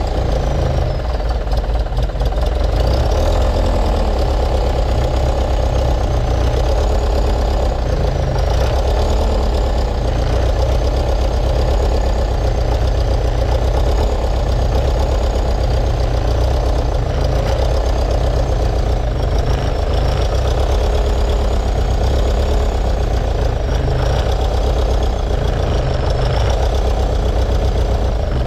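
Skid steer's diesel engine running with a steady clatter and a faint high whine that wavers up and down in pitch, then dying away at the end. The fuel system has just had a new filter fitted and is drawing air.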